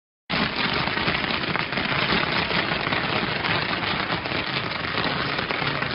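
Fireworks crackling: a dense, continuous rattle of many tiny pops, starting suddenly just after the beginning and keeping up steadily.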